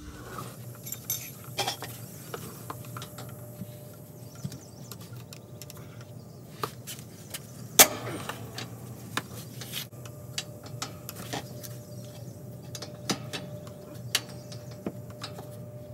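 Scattered metallic clicks and clinks of a wrench working a leveling-jack hydraulic hose fitting loose, with one sharp knock about eight seconds in, over a steady low hum.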